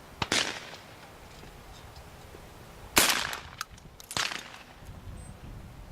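A clay trap snaps and throws a clay target just after the start, then a shotgun fires once about three seconds in, the loudest sound here, followed about a second later by a second, quieter bang.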